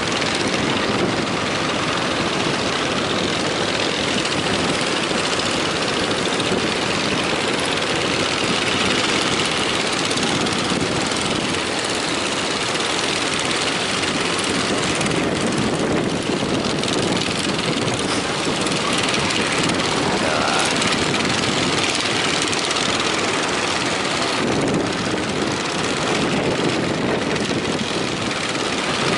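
Steady rush of strong wind and breaking waves, loud and unbroken, with no single event standing out.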